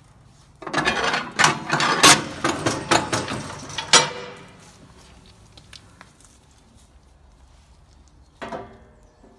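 Stainless-steel parts of a Treif 1300 meat dicer being handled, clanking and rattling metal on metal in a dense run of knocks for about three seconds. A shorter clatter follows near the end.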